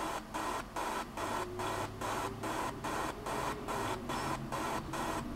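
A rhythmic hiss that pulses evenly, about three times a second.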